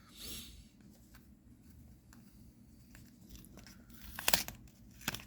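Crinkling of a trading-card booster pack's wrapper as it is handled and torn: a short rustle at the start, then a cluster of sharp crackles about four seconds in.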